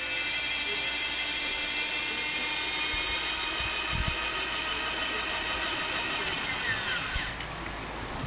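High-pitched whine of the small electric motor and gears in a 1:14 scale RC Mercedes model, its pitch sinking slowly, then winding down and stopping about seven seconds in. There is a soft knock about four seconds in.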